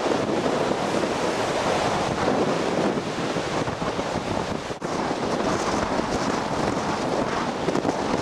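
Strong wind buffeting the microphone over the steady rush of heavy, breaking lake surf, with a brief gap about five seconds in.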